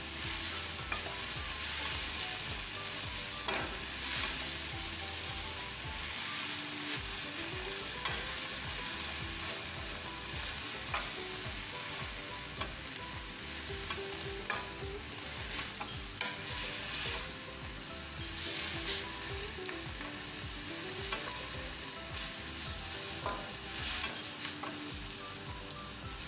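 Kale and bell pepper strips sizzling in a hot wok while a wooden spatula stirs and tosses them, with repeated scrapes and knocks of the spatula against the pan.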